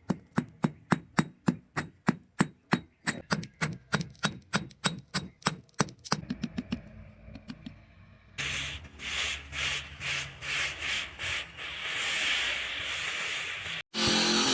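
Quick, regular metal-working strikes, three to four a second, for about six seconds. About eight seconds in come rhythmic scraping strokes, roughly two a second, like a file or rasp on metal. Near the end a louder, steady power-tool noise starts abruptly.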